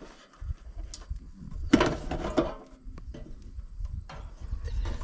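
Handling noise from fitting an RV water heater into its sheet-metal wall opening: scattered clunks, clicks and scraping as the unit and its gas line are worked into place, loudest about two seconds in. A low wind rumble on the microphone runs underneath.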